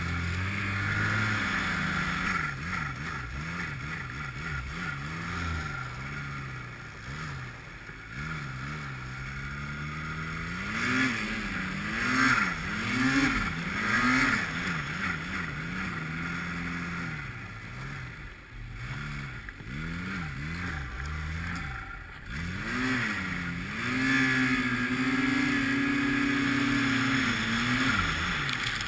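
240-horsepower Arctic Cat snowmobile engine revving up and down over and over as it is ridden through deep powder, then held at a steady high pitch for several seconds near the end.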